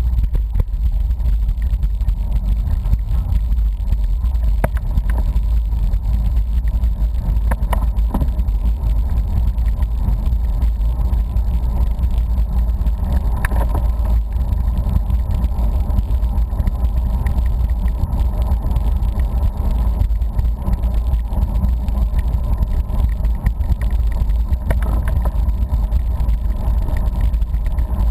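Wind buffeting a camera microphone on a road bicycle riding at speed: a loud, steady low rumble that flutters constantly, with a few faint ticks.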